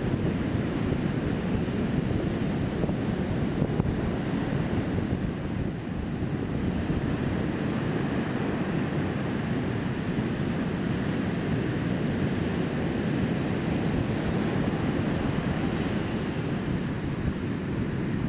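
Ocean surf breaking and washing up a sandy beach, a steady rush of noise, with wind buffeting the microphone.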